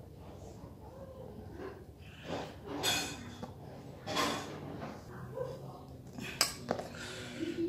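Quiet handling of the tiny metal parts of a spinning reel's line roller and bearing, with faint scrapes and a sharp click about six and a half seconds in, among soft breaths.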